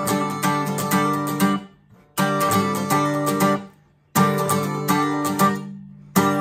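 Steel-string acoustic guitar, capoed at the tenth fret, strummed with a pick in a choppy rhythm riff with a clean, trebly tone. The strumming comes in three phrases, each stopped short by a brief muted gap, about two seconds apart.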